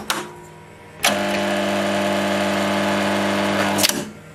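Two clicks, then about a second in a newly wired lathe drive motor is energised and gives a loud, steady buzzing hum for nearly three seconds before cutting off abruptly. The motor vibrates and tries to pull rather than turning freely.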